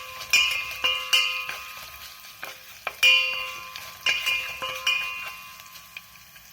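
A metal spoon stirring an oil tempering of mustard seeds, urad dal, dried red chillies, garlic and curry leaves in a small metal pan. It knocks against the pan several times, each knock ringing out as a clear clink, over the sizzle of the hot oil.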